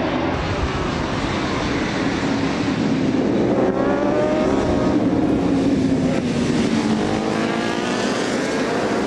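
Racing motorcycle engines revving hard, their pitch rising and falling as the bikes accelerate, shift and go past.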